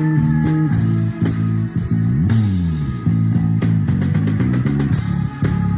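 Live band music with a prominent electric bass guitar, as heard in the bassist's in-ear monitor mix. The bass slides down in pitch about two seconds in, and a quick run of drum hits follows.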